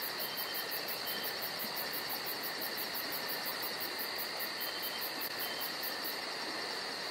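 Insects chirping steadily: a fast, even pulse of very high chirps over a steady hiss.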